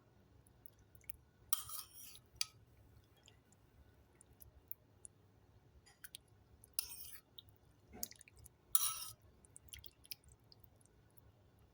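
Someone eating soup: three short slurps with small clicks of a spoon or bowl in between.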